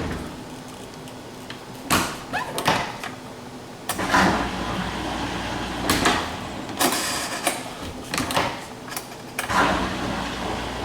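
GE dishwasher being shut and started: several knocks and clicks from the door and controls, then from about four seconds in the machine runs with a steady low hum that grows a little fuller near the end. It runs quietly after the repair, with no racket.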